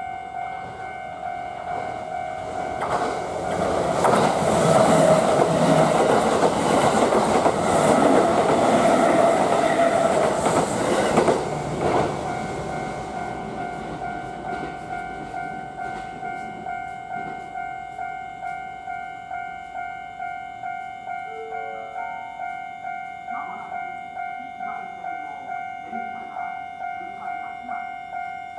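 Japanese railroad crossing warning bell ringing in a steady repeating pattern while a Kintetsu electric train passes over the crossing. The train's rumble and wheel clatter is loudest from about three to twelve seconds in, then fades, and the bell keeps ringing.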